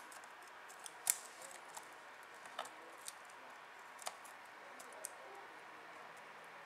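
Small plastic clicks and taps of fingers handling camcorder parts. They come irregularly through the first five seconds, with one sharper click about a second in, over a low hiss.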